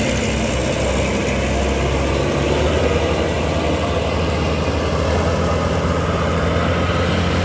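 Rice combine harvester engine running steadily, with a low, even pitch.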